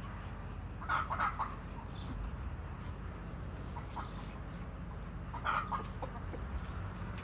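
Chickens clucking: a quick run of short clucks about a second in, and another about five and a half seconds in.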